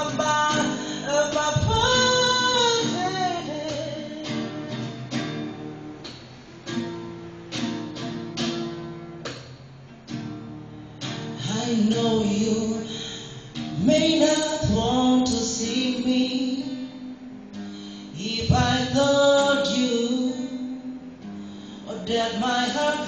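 A man singing a song to guitar accompaniment, his sung phrases separated by stretches of guitar playing.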